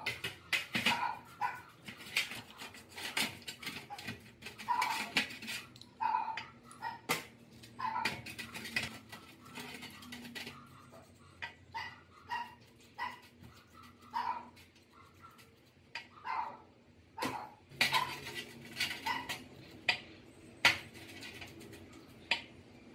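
Small steel hydraulic-jack parts clinking against a metal tray and a brush scrubbing them in liquid, with a dog barking repeatedly in the background.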